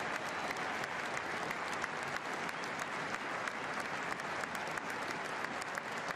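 Large arena crowd giving a standing ovation: dense, steady applause that does not let up.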